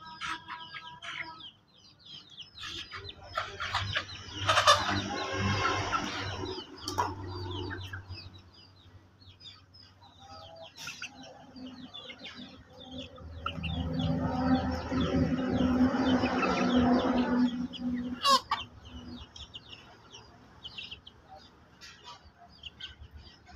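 Chickens clucking, with a rooster crowing twice, each crow lasting a few seconds. Many short high chirps run throughout.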